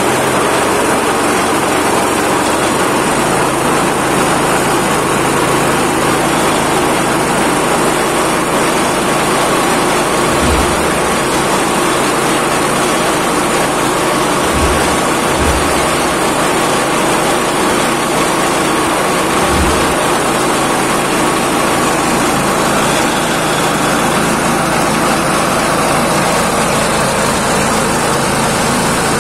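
Vegetable-waste pulping and grinding machine running steadily under power, with a few brief low bumps near the middle.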